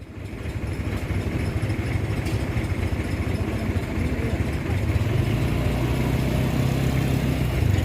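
Diesel truck engine running, swelling up over the first second and then growing heavier and louder about four to five seconds in.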